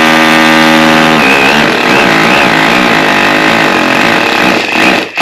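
Makita hammer drill drilling into the wall through a hole already cut in porcelain tile. The motor whine is steady at first, then wavers in pitch from about a second in as the bit bites, and stops just before the end.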